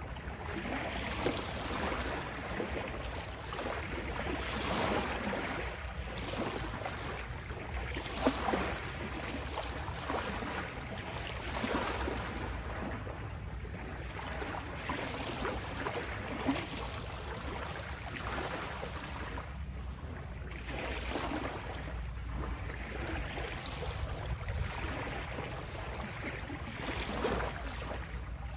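Small sea waves lapping at the shore: a continuous wash of water that swells and eases every few seconds, with a few brief small splashes.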